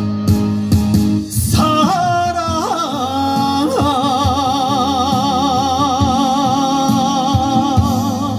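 Korean trot song over a backing track with a steady drum beat, played through a PA. A male singer's voice bends through a few notes, then holds a long final note with wide vibrato.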